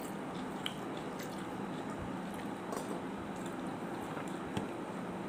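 Eating by hand: fingers squishing and mixing rice with fish curry on a plate, then chewing, with a few small sharp clicks about a second in, over a steady background hiss.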